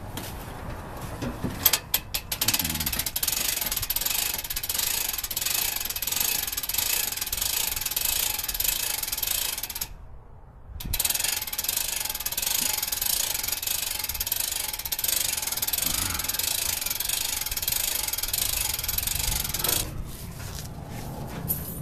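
Rapid mechanical ratcheting clatter in two long runs, broken by a short pause about ten seconds in.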